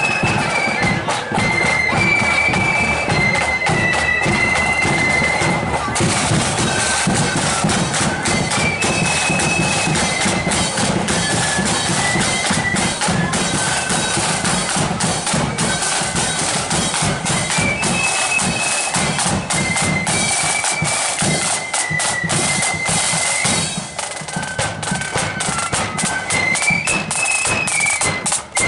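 Marching flute band playing a tune on high flutes over a steady beat of snare and bass drums.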